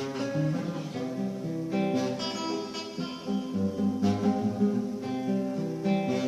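Acoustic guitar music: plucked and strummed chords with a bass line.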